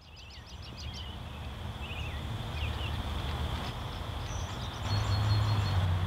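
Dry prairie grass burning on a wide fire front: a rushing, crackling roar that builds in loudness, with a deeper low rumble strengthening about five seconds in. Birds chirp briefly over it.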